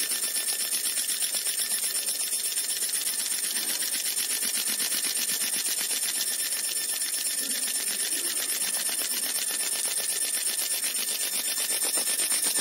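50 W fiber laser marking machine cutting brass sheet: a steady high-pitched whine with a rapid, even pulsing of about five beats a second.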